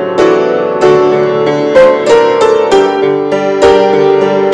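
Grand piano playing a hymn tune, a melody struck over ringing chords, a new note or chord about every half second.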